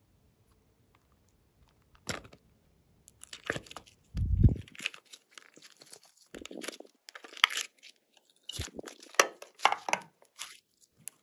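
Hands squeezing and mixing glossy slime, making irregular sticky crackles, clicks and squelches that start about two seconds in, with one heavier low thud near the middle.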